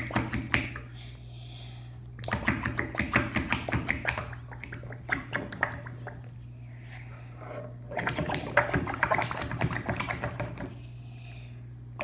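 Air blown through a drinking straw into slime in a small plastic barrel, bubbling and popping in rapid crackly bursts of a second or two, with short pauses between them.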